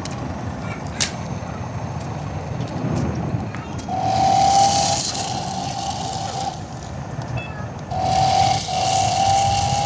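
RC drift car's motor whining in two spurts, one about four seconds in and one from about eight seconds on, each a steady high whine that creeps up slightly in pitch, with a hiss alongside. There is a sharp click near the start.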